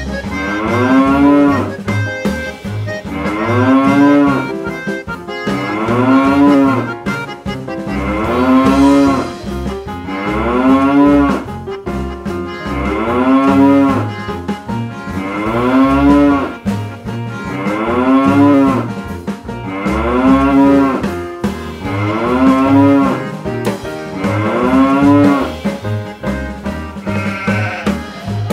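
A cow's moo, the same call repeated about every two and a half seconds, each rising and then falling in pitch, over a children's music track with a steady beat.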